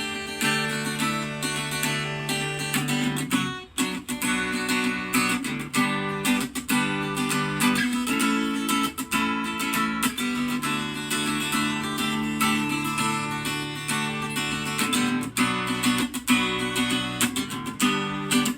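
Deviser LS-610 acoustic guitar being strummed and picked in a tone check, chords ringing on, with a brief break about four seconds in.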